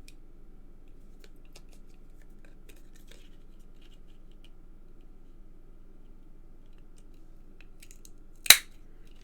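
Faint handling of card and foil with a few light ticks, then near the end one short, sharp crackle of a die-cut copper-foil card star being pushed out of its sheet.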